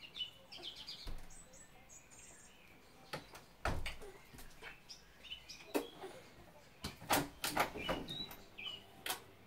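Small birds chirping, then a run of sharp clicks and knocks from a uPVC window being worked from outside with a string looped round its handle, the loudest knocks about three and a half seconds in and again near the end.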